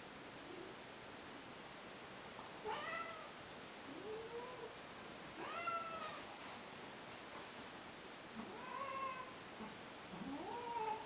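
A cat meowing, about six short meows that rise and fall in pitch, a second or two apart, while a borzoi mouths at its head in play.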